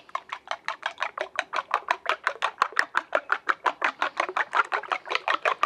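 Metal spoon beating raw eggs in an earthenware bowl, with fast, even strokes about eight a second as the spoon clicks against the clay through the liquid egg.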